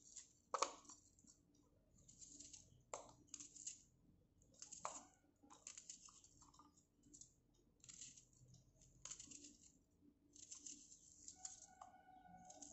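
Faint crisp crunches of a kitchen knife slicing through a raw onion held in the hand, coming every half second to second, with a few light clicks as pieces drop onto the plate.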